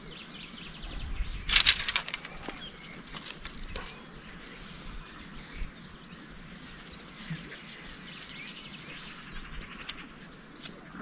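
Dry twigs rustling and snapping as a bundle is handled. The rustle is loudest about a second and a half in, with lighter clicks and crackles later. Small birds chirp in the background.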